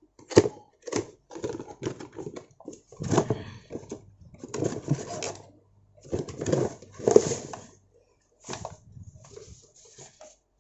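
Irregular rustling, crinkling and knocking of product packaging being handled and opened, in short noisy bursts with brief pauses between them.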